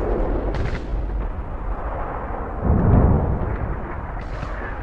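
Deep rumbling of distant explosions, dying away, with a second rumble swelling up about two and a half seconds in.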